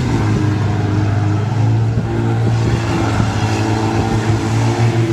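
Demolition derby cars' engines running together in the arena, a loud, steady low drone with rough engine noise over it.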